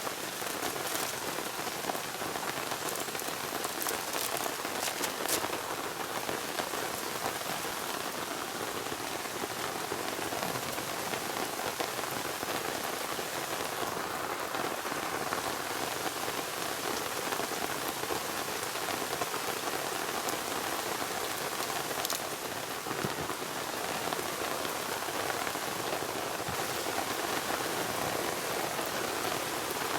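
Rain falling steadily, an even hiss of drops, with a few sharp ticks in the first few seconds.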